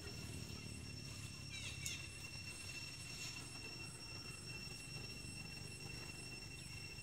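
Outdoor background noise: a steady low rumble under a thin, steady high-pitched whine, with a few short falling squeaks about a second and a half in.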